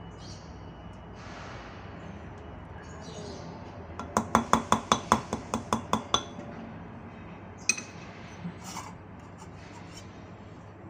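A metal mesh strainer is rapped against the rim of a bowl about a dozen times in quick succession, roughly six clinks a second, to knock out drained canned tuna. One more single clink follows a little later.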